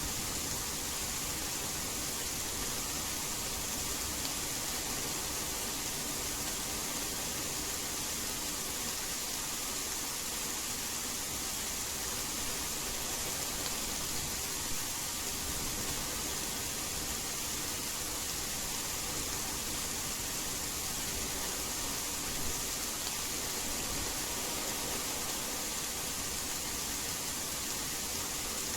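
Steady rain, an even hiss strongest in the high range, with no thunder.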